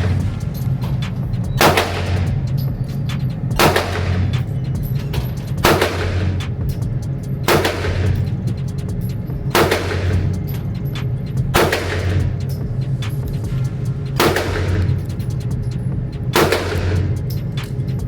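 Handgun shots fired singly, about one every two seconds, eight in all, each followed by a ringing echo.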